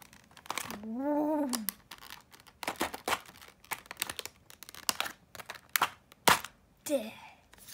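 Irregular sharp clicks and rattles of a clear plastic compartment box of small metal charms being handled, with a loud click a little after six seconds. A short hummed "ooh" rises and falls about a second in.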